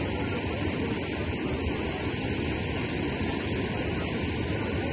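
Steady rushing noise of a flood-swollen, muddy river flowing past, mixed with wind.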